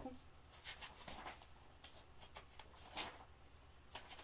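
Paper rustling as sketchbook pages are handled and turned by hand: a faint run of short crackles, with a sharper one about three seconds in.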